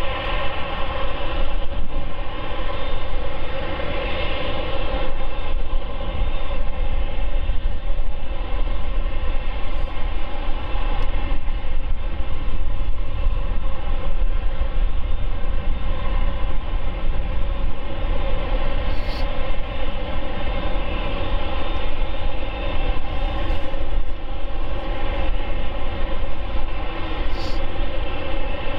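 Boeing 747-8F's GE GEnx jet engines running steadily on the ground at idle: a steady many-toned whine over a deep rumble.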